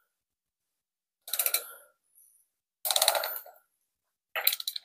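A ratchet wrench on the crankshaft pulley bolt of a Porsche 924 engine clicks in three short spells of rapid clicks as the engine is turned over by hand, to bring the timing marks round to top dead centre on number one cylinder.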